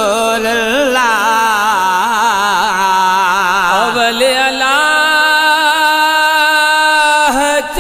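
Solo voice singing a naat, an Islamic devotional song, in long wavering melismatic runs, then holding one long steady note for most of the second half before a short break and a new phrase near the end.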